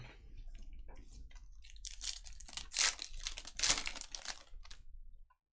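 Foil wrapper of a Panini Prizm basketball retail pack crinkling and tearing as it is ripped open by hand, in several sharp bursts, the loudest about two, three and nearly four seconds in, stopping suddenly near the end.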